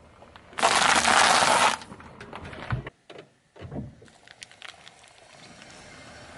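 An object crushed under a car tyre: a loud, noisy crunch lasting about a second, then two lower thuds and faint scattered crackles as the pieces settle.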